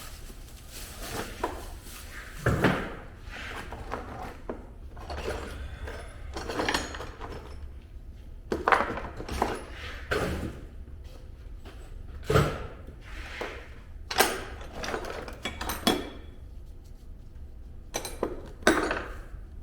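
Metal tools and parts being handled: irregular clanks, knocks and clattering, with several louder knocks spread through and a low steady hum underneath.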